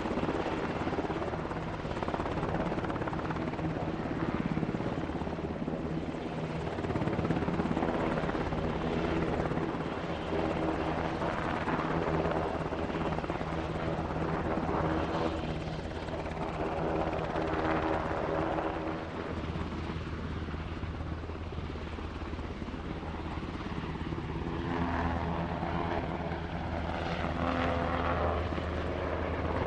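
Helicopter running steadily, a continuous rotor and engine drone with slow swells in loudness.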